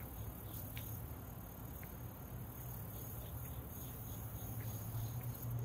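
Outdoor ambience in light rain: a steady high insect drone with scattered drips ticking now and then, over a low steady hum.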